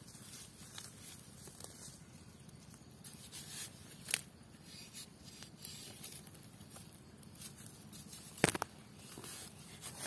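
Bamboo digging stick scraping and prodding into dry, leaf-strewn soil while digging up wild mushrooms: scattered scratches and crumbling soil, with sharper clicks about four seconds in and a double click near the end.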